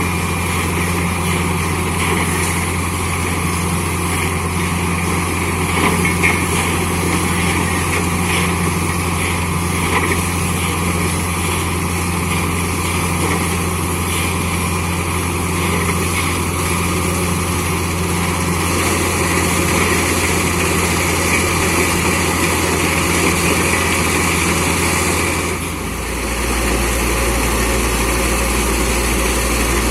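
Borewell drilling rig and its air compressor engines running steadily. About 26 seconds in, the engine note drops to a lower pitch.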